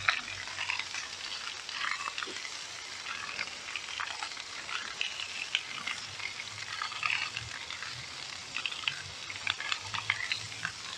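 Whole sea bream frying on a plancha oiled with olive oil: a steady sizzle with frequent crackling pops of spitting oil.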